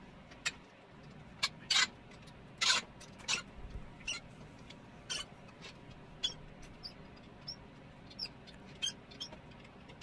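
Stiff, tight bolts on a vintage Elektra espresso machine's boiler mount squeaking and creaking in short, irregular bursts as they are worked loose with a hex key; about a dozen squeaks, one a little longer near the three-second mark.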